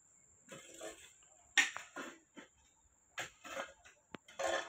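Hand hoes striking and scraping into red earth and broken brick rubble: irregular blows, the loudest about a second and a half in. A faint steady high-pitched tone runs underneath.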